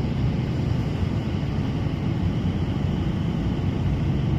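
Large mining haul truck's diesel engine running steadily as the truck drives along the haul road, a low, even drone.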